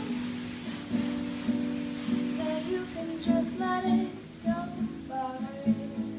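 Acoustic guitar strummed in a steady rhythm, with a voice singing a melody over it in the second half.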